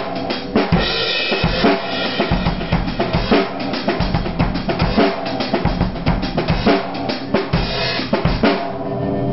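Acoustic drum kit played in a half-time shuffle groove: bass drum, snare and cymbals. A run of quicker strokes comes near the end, then the playing stops.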